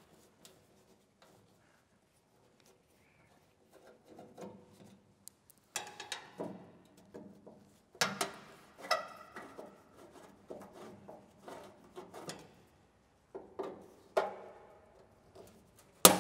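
Screwdriver working at old screws in the sheet-steel front panel of a P&H TWI-200 AC arc welder: irregular metallic scrapes, clicks and knocks, some ringing briefly. The first few seconds are nearly quiet, and a sharp click comes near the end.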